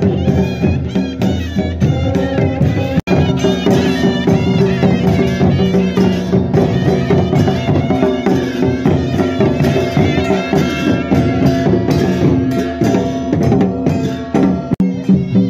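Himachali folk band music: barrel drums and a brass plate struck with a stick beat a fast, steady rhythm while a wind instrument plays a high, wavering melody over them. The sound drops out for an instant about three seconds in.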